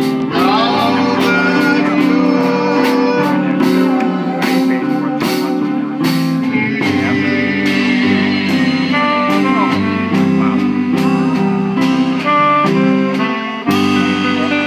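Small live band playing a slow ballad: strummed acoustic guitar, a saxophone carrying long notes, and a drum kit keeping a steady beat.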